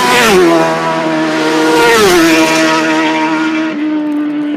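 Race superbike passing close at full speed, its loud, high-revving engine note dropping in pitch as it goes by. A second drop in pitch comes about two seconds in, and then the engine settles to a steady note that fades as the bike draws away.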